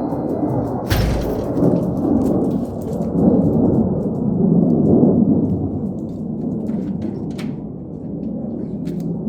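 Low rumble of an airplane passing overhead, swelling to its loudest midway and then easing off. A sharp knock sounds about a second in.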